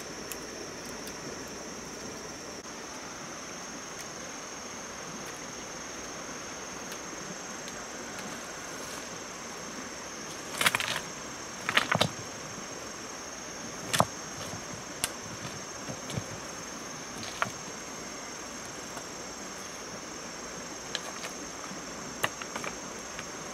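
Insects chirring steadily on one high pitch over a soft background hiss. A few sharp clicks and knocks break in, the loudest clustered around the middle.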